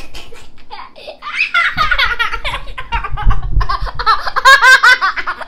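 A young boy laughing hard in quick, high-pitched bursts, loudest about four to five seconds in.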